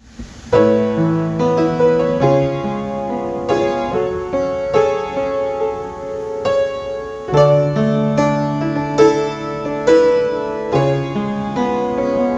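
Piano playing slow chords over held bass notes, a new chord struck about once a second.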